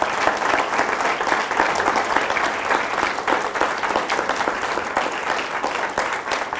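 An audience in a lecture hall applauding, many people clapping at once, steady and sustained, at the close of a talk.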